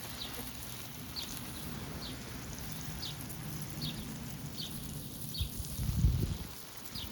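A bird repeating a short, high, falling chirp about once a second, over a steady outdoor background. About six seconds in there is a brief burst of low rumble.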